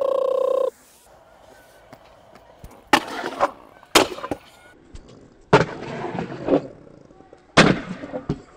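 Stunt scooter hitting and grinding on a concrete skatepark box: sharp clacks about three and four seconds in, then a clack with about a second of scraping, and another clack and scrape near the end. A short steady humming tone sounds at the very start.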